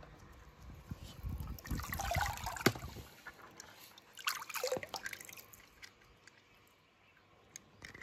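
Pool water splashing and sloshing as a hand moves toy cars through it: two bursts of splashing, about two seconds in and again near the middle, with a sharp click between them, then it goes quiet.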